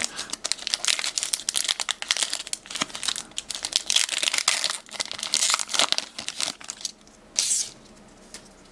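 Foil wrapper of a Pokémon card booster pack being torn open and crinkled: a dense run of crackling for about six seconds, then one short crinkle near the end.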